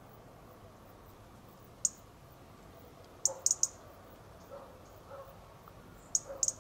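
European robin giving short, sharp, high-pitched tick calls: one about two seconds in, then quick runs of about three ticks around three and a half seconds in and near the end.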